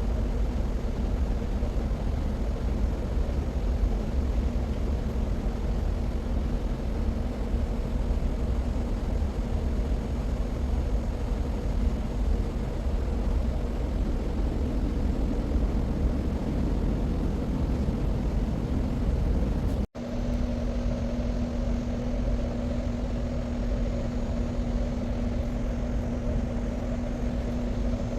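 Steady industrial machinery rumble with a constant electrical hum. It cuts out for an instant about two-thirds of the way through, and the hum is stronger afterwards.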